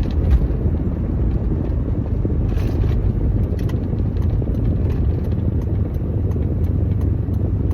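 Steady low rumble of a vehicle running, with no distinct events.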